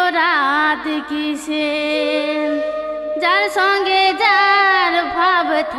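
Jhumur folk song from Purulia: a female voice singing ornamented, wavering phrases over instrumental accompaniment, with a stretch of long held notes in the middle before the singing resumes.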